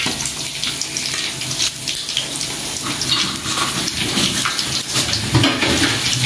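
Fish deep-frying in a wok of hot oil: a steady sizzle with fine crackling.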